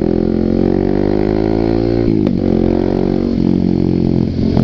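Kawasaki D-Tracker motorcycle with a Muscov aftermarket exhaust accelerating. The engine note rises in pitch, drops sharply about two seconds in as he shifts gear, then climbs again.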